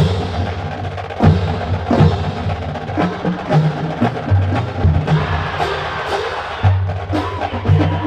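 Marching band music driven by drumline percussion: a rapid run of sharp drum strokes over repeated low bass notes.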